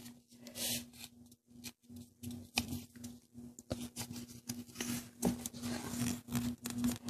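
Sheet of paper rustling and crackling as hands fold it and press the crease flat, in many short irregular crinkles and taps.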